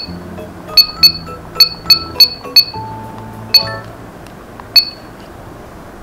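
70mai Dash Cam Pro giving a short, high electronic ping at each button press while its date and time are set. Seven pings come in quick, uneven succession over the first three and a half seconds, and one more follows near the end, over background music.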